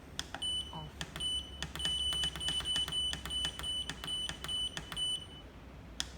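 All-in-one heat pump's LCD controller beeping at each button press: a quick run of short, high beeps, about three a second, each with a sharp button click, as the timer-off hour is stepped through. It stops a little after five seconds in.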